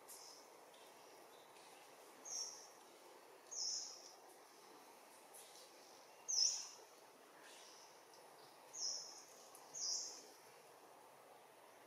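A bird calling in short, high-pitched chirps, five of them a second or more apart, over a faint steady outdoor hiss.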